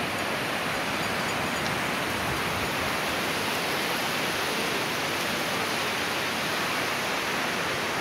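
Steady wash of ocean surf: small waves breaking and running up a shallow sandy beach, an even hiss with no distinct swells.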